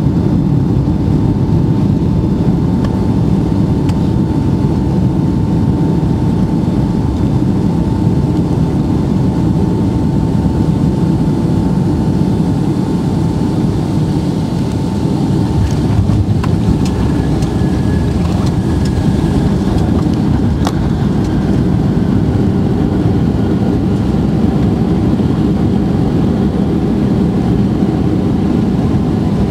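Boeing 757-200 cabin noise during the landing: a steady, loud roar of engines and airflow. About halfway through, a few knocks come as the wheels touch down, and the roar carries on through the rollout with the spoilers up.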